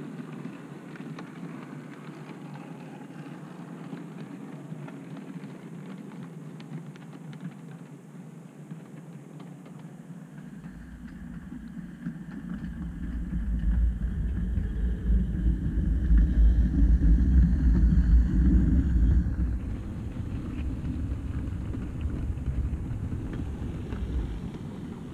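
OO gauge model train running along the track: a steady rumble of wheels and motor with faint clicks. About halfway through it swells into a much louder, deeper rumble, then eases off near the end.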